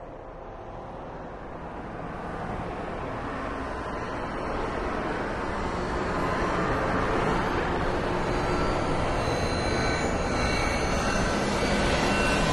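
Electronic music built from processed lumber-mill recordings: a dense mechanical drone that swells steadily louder, with a few thin high tones coming in over its second half.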